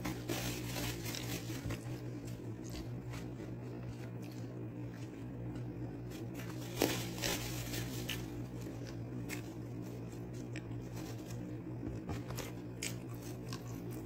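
Paper food packaging and a small sauce packet being handled close to the microphone: crinkling and tearing with scattered short clicks, the loudest a sharp snap about seven seconds in. A steady low hum runs underneath.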